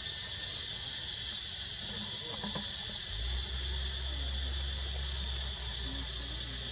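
Insect chorus droning steadily, a continuous high-pitched hiss that does not change.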